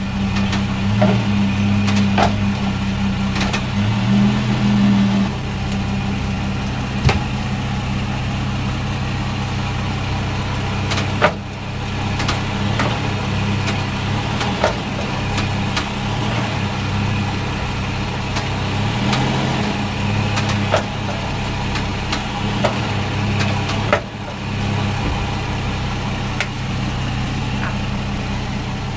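2006 Toyota Tundra running with its rear end jacked up, heard from underneath the truck: a steady low drivetrain hum with scattered sharp clicks and knocks. The truck has a vibration and clunk that the owner traced to worn driveshaft U-joints.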